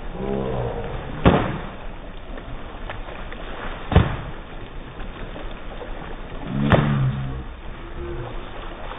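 Foam pool noodles smacking down on pool water, three sharp slaps a few seconds apart over water splashing. A short shout near the start and another with the last slap.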